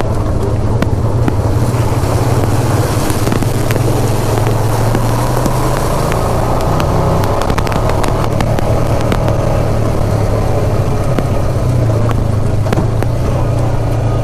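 ATV engine running steadily under way on a rough trail, with many short clicks and knocks over it.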